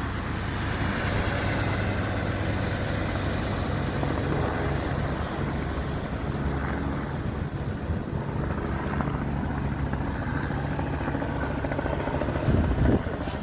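A steady engine hum with a constant low drone, under a haze of outdoor noise, with a few louder gusts near the end.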